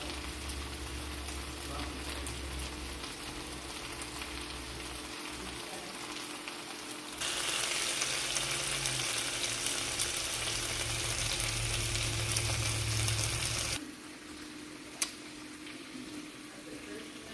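Food frying in a pan, a steady sizzling hiss that gets much louder for about six seconds in the middle, then drops back. A single sharp click near the end.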